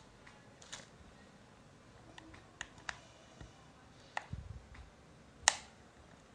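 Plastic back cover of a Micromax Canvas HD A116 phone being prised off by fingers: a series of faint, irregular plastic clicks as the cover's clips let go, the loudest about five and a half seconds in.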